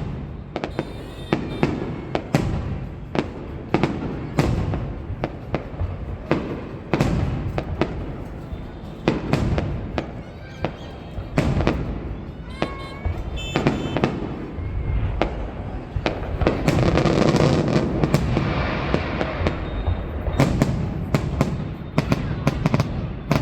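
Aerial fireworks shells bursting in an irregular series of loud bangs, with a denser, louder stretch a little past the middle.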